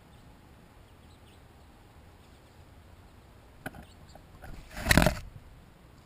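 Something knocking and brushing against the camera: a sharp click, then about a second later a brief loud rustling bump close to the microphone, as the camera's view is knocked down toward the seeds.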